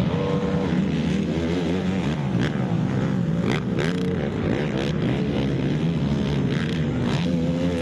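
Racing ATV engines revving up and down as quads race around a motocross track, several engines overlapping, their pitch rising and falling with throttle and gear changes.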